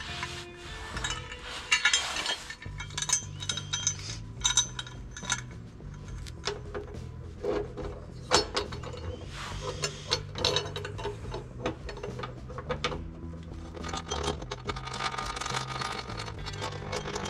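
Irregular metal clinks and clicks of hand tools and bracket hardware as a running-board mounting bracket is fitted and bolted to the van's underside. Background music with a stepping bass line plays underneath.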